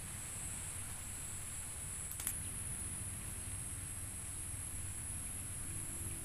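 Steady high-pitched insect chorus, with a single sharp click about two seconds in.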